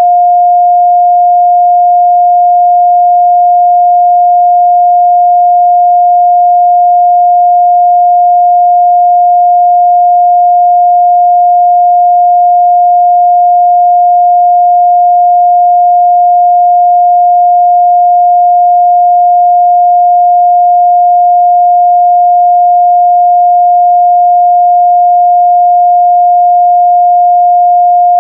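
A pure 708 Hz sine-wave test tone, held steady and loud without change, used for checking the midrange response of speakers and headphones.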